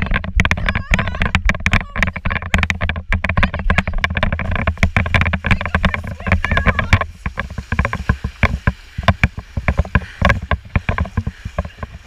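Wind rumbling on an action camera's microphone with rapid, irregular thuds while running across sand, then water splashing from legs wading into shallow sea from about halfway through.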